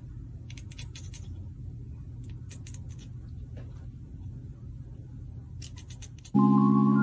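Faint crackly rustling in a few short clusters, like artificial Christmas-tree branches and tinsel being brushed, over a low steady rumble. Music with sustained mallet-like tones starts abruptly near the end.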